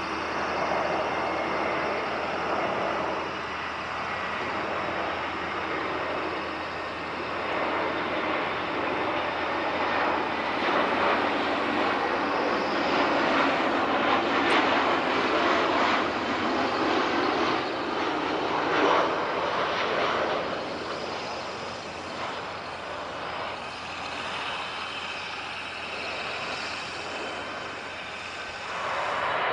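Airbus A321 airliner's twin jet engines on final approach with the landing gear down, the noise swelling to a peak about halfway through as it passes close, then fading.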